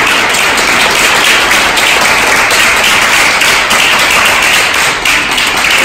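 Audience applauding loudly, a dense patter of many hands clapping that stops abruptly at the very end.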